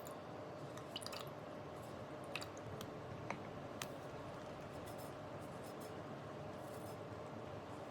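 Quiet food-preparation sounds: a few light clicks and taps in the first half, over a steady faint hum.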